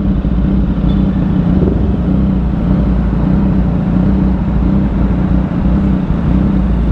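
Motorcycle engines idling at a standstill: a steady, low, even rumble.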